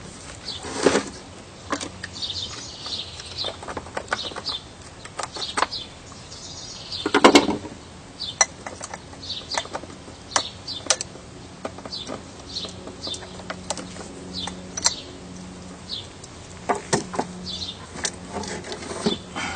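Scattered metal clicks and clunks as the bar and chain of a Husqvarna 872 XP chainsaw are handled during a bar swap, with louder clunks about a second in and about seven seconds in. Small birds chirp throughout.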